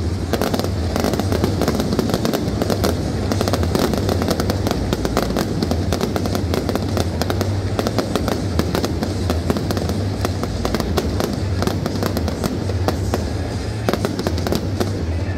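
Aerial fireworks going off in a continuous, dense run of crackles and bangs over a steady low rumble.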